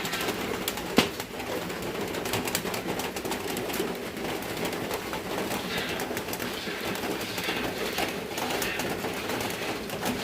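Doves cooing over a steady crackling sizzle of food frying in its own fat on a wood fire, with one sharp knock about a second in.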